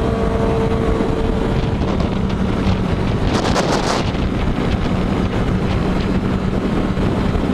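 Wind rushing over a helmet-mounted microphone on a moving motorcycle, with the engine running steadily underneath. About three and a half seconds in there is a short burst of rapid crackling.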